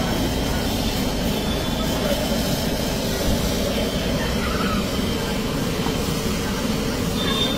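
Steady rumbling noise of cooking on a large street-food griddle, as a metal spatula turns a heap of chopped onions and tomatoes on the hot, steaming metal.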